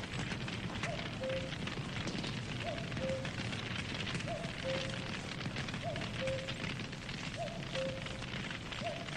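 Campfire crackling and popping steadily, with a short two-note animal call, a hooked note then a lower held note, repeating about every second and a half in the background.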